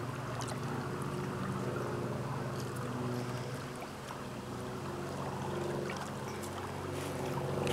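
Steady low engine hum with several pitches at once, running on evenly without rising or falling.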